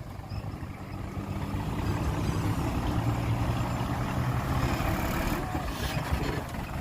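Heavy diesel engine of earthmoving machinery running steadily, growing louder over the first couple of seconds and then holding.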